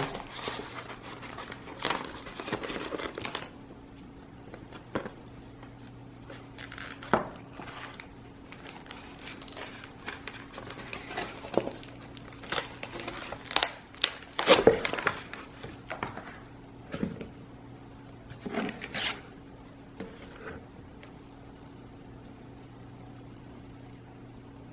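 Packaging being handled: intermittent crinkling and rustling with scattered light clicks and knocks, the busiest stretch about halfway through, over a faint steady hum.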